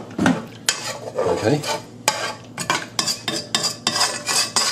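A stainless steel ladle stirring and scraping through watery roast-chicken juices in a metal pot, with repeated sharp clinks of the ladle against the pot: the pan residue being deglazed with water for gravy.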